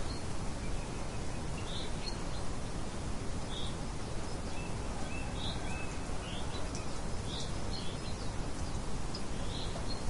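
Steady rain hiss with small birds giving short, high chirps every second or so at irregular intervals.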